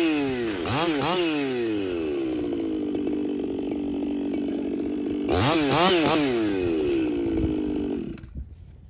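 Ported Echo CS-4910 two-stroke chainsaw idling off the wood, its throttle blipped twice about a second in and twice more around five to six seconds in. The engine then shuts off about eight seconds in.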